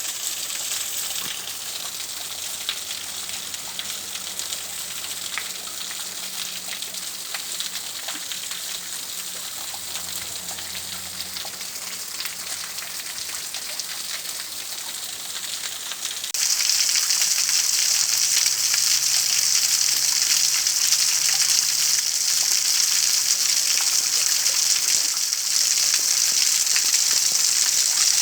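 Steady rushing of a waterfall. A little past halfway the sound steps up abruptly to a louder, brighter hiss.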